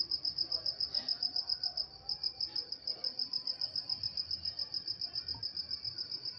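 Cricket chirping at night, a steady high-pitched pulsing of about seven chirps a second, with a brief break about two seconds in.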